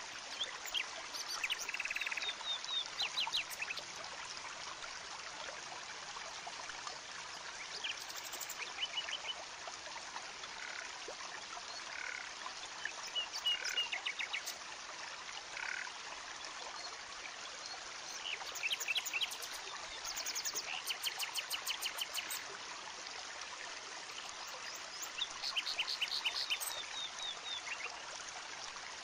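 Forest ambience: a steady hiss, with animal calls in rapid trains of clicks recurring every few seconds.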